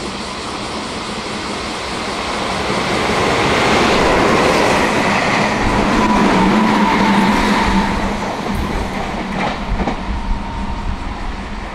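Meitetsu electric train running past close by: a rush of wheel and running noise builds over the first few seconds and holds, then eases, with wheels clacking over rail joints near the end.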